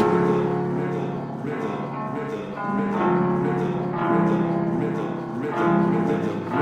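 Background music in a soft passage: a plucked, guitar-like melody over held chords, with no bass or drums.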